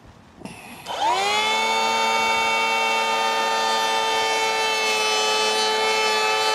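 DeWalt DCP580 cordless power planer spinning up with a rising whine about a second in, then running at full speed with a steady high whine as it is pushed along a wooden ridge beam, set to its shallowest cut to flatten the beam's uneven underside.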